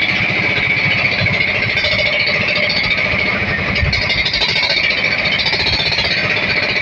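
Small engine running steadily with a rapid, rough pounding beat.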